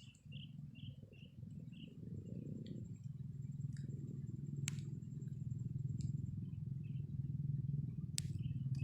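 Sooty-headed bulbul calling faintly, a run of short chirps about three a second, over a steady low rumble, with two sharp clicks partway through.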